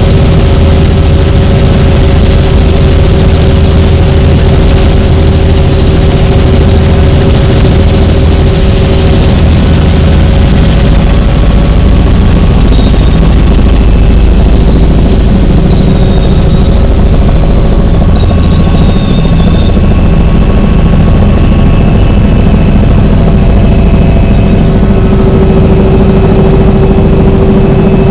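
Helicopter turbine engine and rotor running steadily: a loud low drone with a high-pitched turbine whine.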